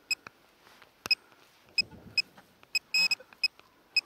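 Handheld metal detector giving short, same-pitched beeps at irregular intervals, with a quick run of beeps about three seconds in, signalling a metal target (a coin) in the soil.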